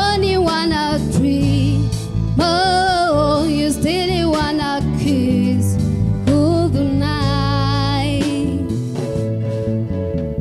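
A woman singing into a microphone with a live band accompanying her. Her voice comes in about three long phrases of held, wavering notes, over a steady low accompaniment.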